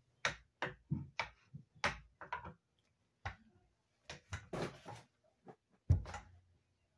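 Irregular clicks and knocks of a roller racer's metal tube frame and plastic parts being handled and fitted together as the front steering section is worked onto the seat frame. The loudest knock comes about six seconds in.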